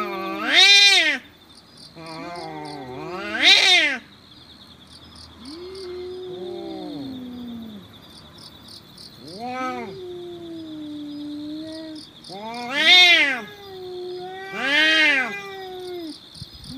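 Cats yowling at each other in a standoff: long, low, wavering moans broken by about five loud howls that rise and fall in pitch, the warning calls that come before a cat fight.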